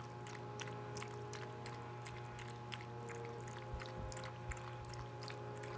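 Shih Tzu puppy lapping water from a plastic bowl: a quick, even run of small wet clicks, about four a second.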